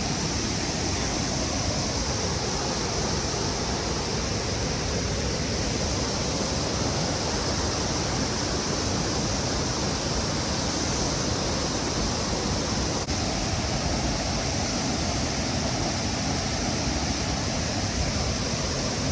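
Steady rushing of falling water, an unbroken even roar with a high hiss riding over it.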